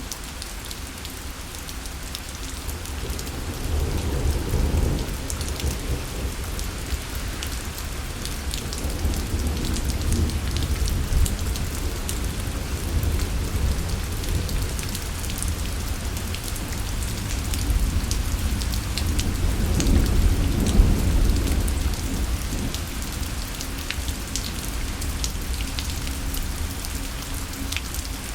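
Steady rain falling, with fine drop ticks over an even hiss, while thunder rolls in long low rumbles that swell several times, the strongest near the middle of the stretch.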